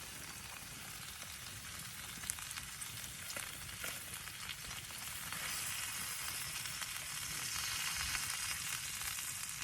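Food sizzling in a small frying pan on a camp burner, with a few faint clicks; the sizzle grows louder from about halfway.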